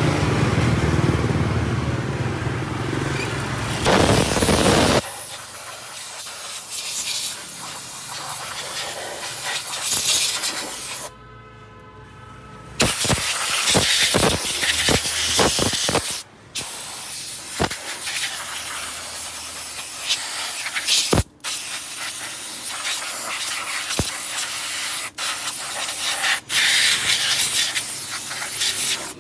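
Compressed-air blow gun hissing in long blasts, blowing dust out of an old amplifier's circuit board and heat sink. The air is let off briefly several times, once for about a second and a half near the middle, and the first few seconds are fuller and deeper than the rest.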